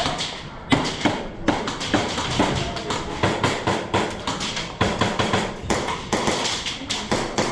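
A busy run of sharp, irregular taps and knocks, several a second, with no steady rhythm.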